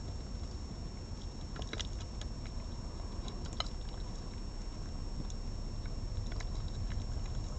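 A red fox nosing into plates of food and starting to eat, heard as scattered small clicks and ticks over a steady low rumble. A faint constant high whine runs underneath.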